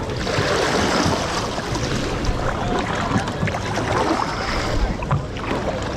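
Water splashing and lapping around a kayak, with a few short knocks about halfway through and again near the end. Wind is rumbling on the microphone.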